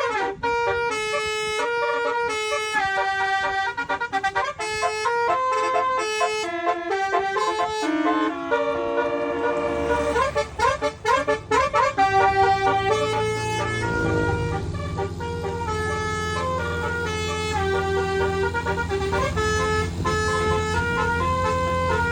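A 12-trumpet MSK Romeo telolet air-horn set playing a tune in quick stepped notes, with a fast warbling run around ten to twelve seconds in. A low steady hum comes in under the horns from about ten seconds in.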